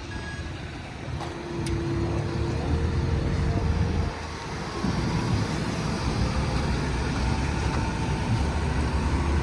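Engine running steadily, louder after about a second, with a short dip about four seconds in.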